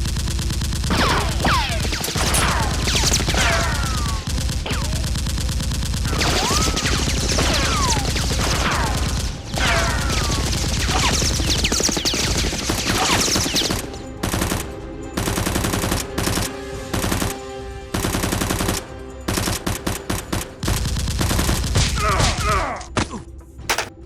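Rapid automatic gunfire, continuous for the first half, with falling whistle-like tones among the shots. It then breaks into separate short bursts with brief gaps, stopping just before the end.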